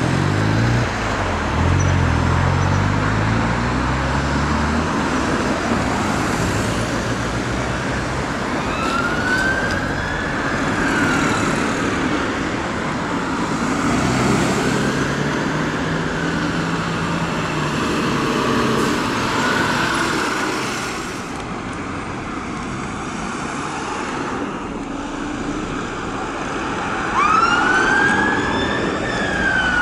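Fire engine's diesel engine pulling away, then its siren wailing in slow rising-and-falling sweeps over town traffic. Near the end a second fire engine's siren wail comes in loudest.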